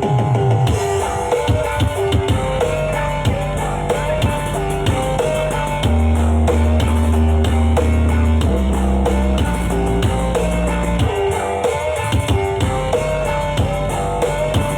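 Music with drum kit, guitar and a melody line, played loud through a carnival sound system; heavy bass notes come in about six seconds in and drop away about five seconds later.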